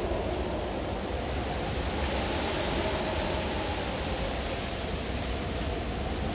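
Wind blowing steadily over a low rumble, with a hissing gust that swells up in the middle and eases off.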